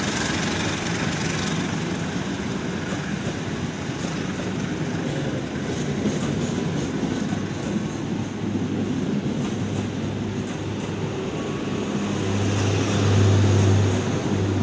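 Passenger coaches of a long-distance train passing straight through a station at speed: a steady rumble of wheels on the rails with clickety-clack over the rail joints. A louder low hum swells near the end.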